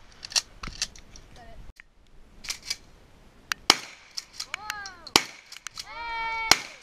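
Ithaca Model 37 12-gauge pump shotgun firing: two loud shots about a second and a half apart in the second half, with lighter sharp cracks earlier. Near the end come two drawn-out pitched calls that rise and fall.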